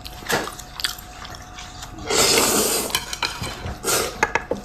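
Dishes and utensils clinking and knocking at a meal, in scattered short clicks, with a louder scraping noise lasting under a second about two seconds in and a shorter one near the end.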